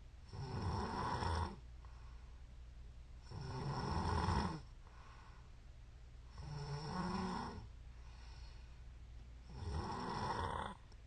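A woman snoring in her sleep: four snores, each about a second long, in an even rhythm about three seconds apart.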